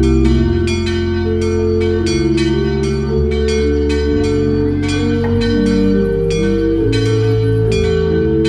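Several church bells pealing together: overlapping strikes at about two to three a second, each ringing on with a long sustained hum.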